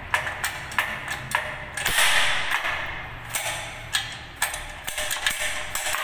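Metal clicks and clacks from a panic exit device's push bar being worked by hand, its latch mechanism snapping as it moves; a louder rattling clatter about two seconds in. The mechanism is still working.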